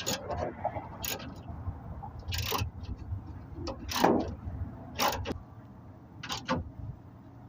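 A 1/2 inch socket and a 10 mm wrench clink and scrape on the metal as bolts on a pickup's spare tire latch assembly are tightened. The sound comes as a series of irregular sharp clicks, with about five louder strokes and lighter ticks between them.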